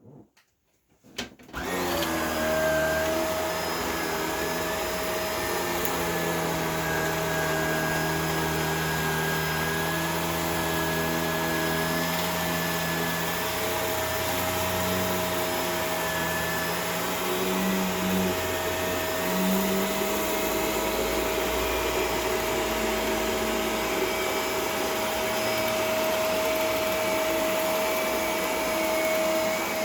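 Shark Rotator Professional Lift-Away vacuum cleaner switched on with a couple of clicks about a second and a half in. It then runs steadily, vacuuming sawdust, with a constant whine over a lower hum that shifts in pitch now and then.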